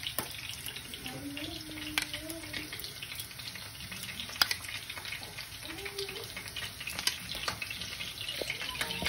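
A metal spoon scooping garlic yogurt from a ceramic bowl and dabbing it onto fried potatoes, giving a few light clicks and wet dabs over a steady faint hiss.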